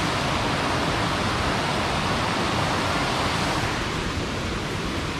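Mountain stream cascading over rocks, a steady rush of white water.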